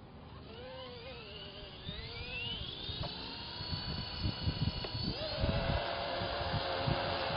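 Blade SR electric collective-pitch RC helicopter spooling up on the ground: the motor and gear whine rises steadily as the rotor speeds up, then levels off into a steady whine for the last few seconds.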